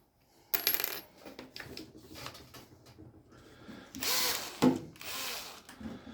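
Small metal parts clinking and rattling as they are handled, in a string of clicks with three louder scraping rattles, the first about half a second in and two more near the end.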